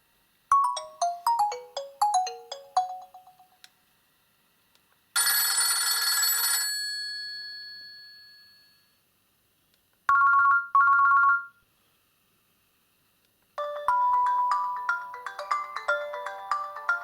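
Nokia 2720 Flip playing a series of ringtone and alert-tone previews through its speaker. First comes a short run of falling notes, then a single bright chime that rings out, then a double two-tone beep, and in the last few seconds a longer ringtone melody with several notes at once begins.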